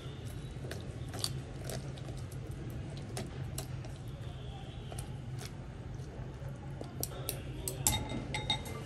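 Wooden chopsticks clicking and scraping as stuffing is packed into the opened body cavity of a whole carp: scattered light clicks, coming closer together near the end, over a steady low hum.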